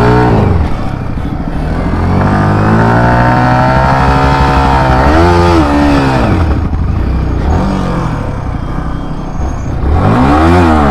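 Yamaha R15 V4's 155 cc single-cylinder engine pulling up through the revs under throttle, then dropping back. Two sharp throttle blips, one about five seconds in and one near the end.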